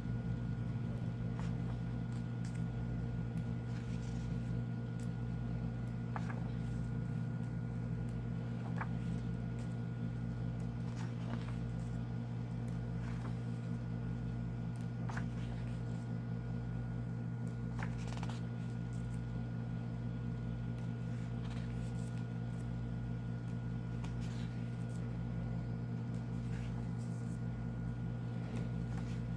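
Steady low machine hum with a faint high whine over it, and soft paper rustles every few seconds as the pages of a softcover book are turned.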